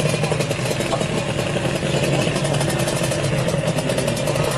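Kawasaki Ninja R drag bike's two-stroke single-cylinder engine idling steadily with a fast, even beat.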